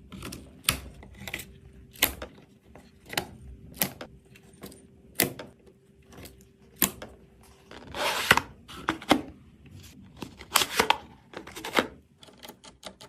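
Irregular sharp clicks and clacks of hard parts being handled and fitted together, about one or two a second, with a longer scrape about eight seconds in.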